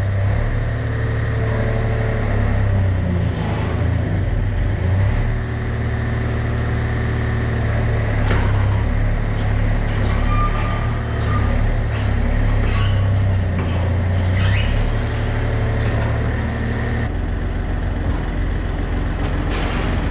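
Yanmar B37 mini excavator's diesel engine running steadily with a low hum, with a few clicks over it, while the boom and bucket move. The low engine note shifts about 17 seconds in.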